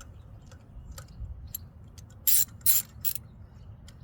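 Socket ratchet wrench clicking as spark plugs are worked out, with light clicks throughout and three loud bursts of ratcheting a little past halfway.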